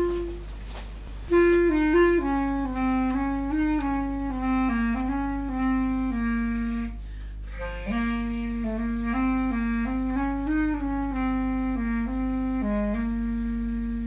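Background music: a slow solo melody in long held notes over a steady low drone. The melody breaks off briefly about a second in.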